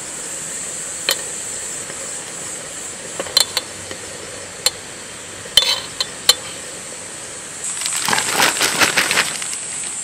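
A few light metallic clinks as a steel spoon is set on an aluminium camping pot lid to cover its steam holes, over a steady high hiss. Near the end, a dense rustle of plastic bags being handled.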